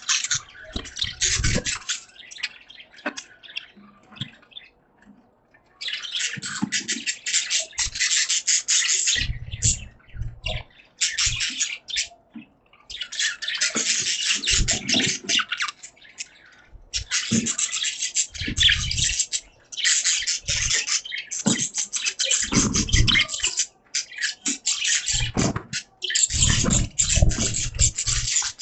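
Budgerigars chattering in their cage: bouts of fast, scratchy warbling a few seconds long with short pauses between, and some dull low thumps mixed in.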